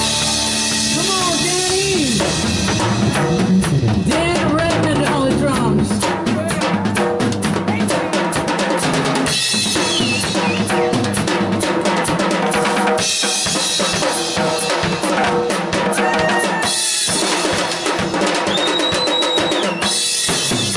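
Live rock band playing, with guitar and bass over a Pearl drum kit; about six seconds in the other instruments drop out and the drums carry on alone in a dense solo of snare, bass drum and cymbal hits.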